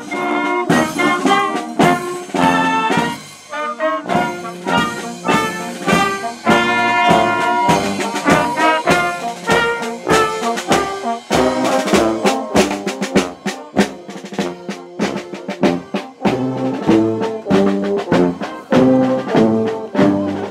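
A marching brass band playing a march as it walks: sousaphone, tenor horns, saxophone and snare drum, over a steady beat of about two a second.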